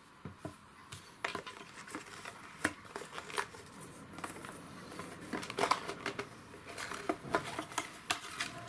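Cardboard and plastic packaging being handled: a smartphone box's white cardboard insert lifted out and wrapped accessories unpacked, giving scattered small clicks, taps and crinkles.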